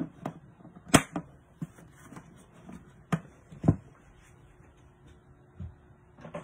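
A few sharp knocks and clicks of craft tools and pieces being handled and set down on a work table, the loudest about a second in and two more a little past three seconds, with lighter taps between.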